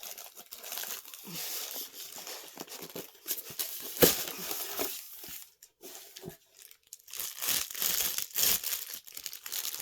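Packaging crinkling and rustling as it is handled and unwrapped, in uneven spurts, with one sharp knock about four seconds in.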